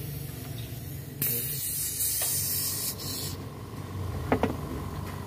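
Aerosol carbon cleaner spraying through a removed fuel injector in one hissing burst of about two seconds, starting about a second in, to flush out its passages. A sharp click follows near the end.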